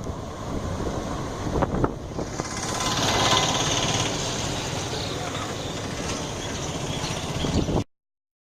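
Diesel-hauled passenger train running past, a dense rumble and rattle with a hiss that swells about two to three seconds in, with wind buffeting the microphone. The sound cuts off abruptly near the end.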